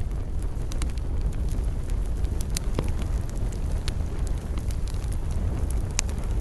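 Wood campfire crackling: scattered sharp pops and snaps, a stronger one near the end, over a steady low rumble.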